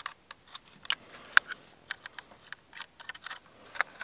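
Plastic clicks and taps from a DJI Mavic Mini remote controller being handled and folded open. The clicks are short and come irregularly, with one sharper click about a second and a half in.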